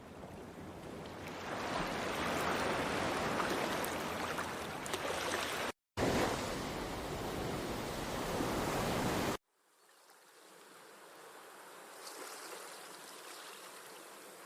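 Ocean sound-effect previews: a steady rush of surf and water played as three clips one after another. The first fades in and swells, then cuts off abruptly near six seconds into a second clip. At about nine and a half seconds it switches to a quieter third.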